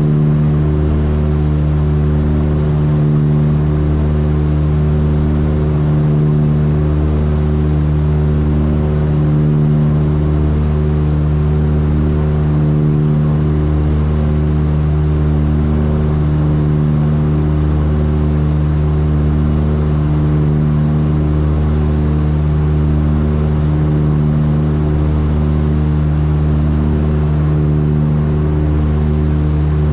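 Cabin drone of a Tecnam P2006T's two Rotax 912 engines and propellers running steadily in flight. The low hum swells and fades every three seconds or so, the beat of the two engines turning slightly out of sync.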